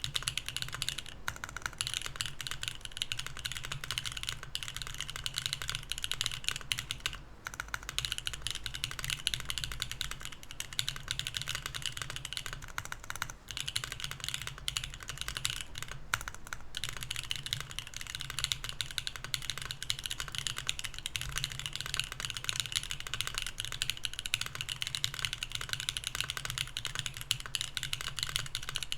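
Fast continuous typing on a Mercury65 mechanical keyboard with BSUN Anya switches in an aluminum plate without foam, keycaps clacking rapidly with a couple of brief pauses.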